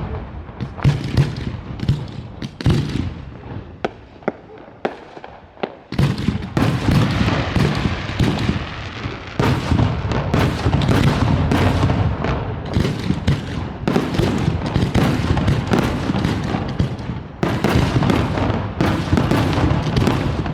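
Fireworks display going off: separate sharp bangs and cracks for the first six seconds, then a dense barrage of rapid-fire explosions.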